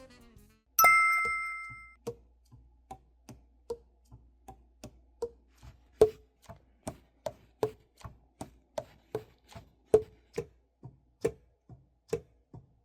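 A single bright ding that rings out for about a second, then an even run of sharp ticks, about two and a half a second.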